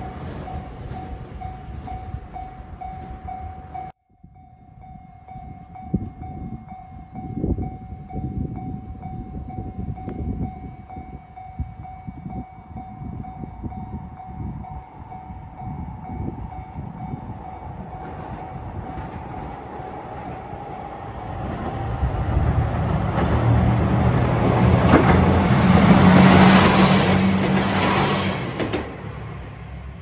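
Railway sounds: the fading run of a train that has just passed, then a passing train that swells and fades over several seconds near the end, with a steady low hum under it.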